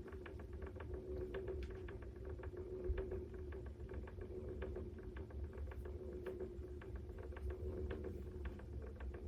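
Faint scattered small clicks and taps over a low steady hum.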